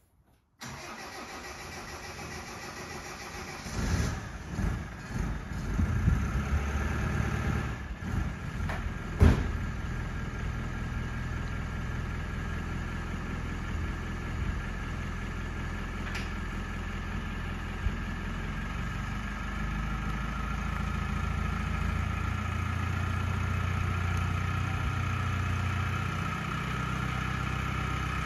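Land Rover Defender 110 engine cranked and started about four seconds in, with a single sharp clunk a few seconds later. The engine then runs steadily and grows a little louder as the vehicle slowly reverses out towards the camera.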